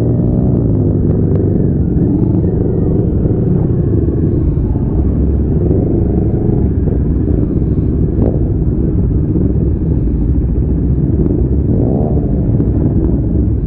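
Motorcycle engine running under way, its pitch rising and falling with the throttle, over a steady low rumble.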